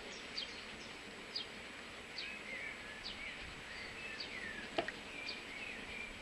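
Small birds chirping and warbling in the background over a steady hiss, with a single sharp click just under five seconds in.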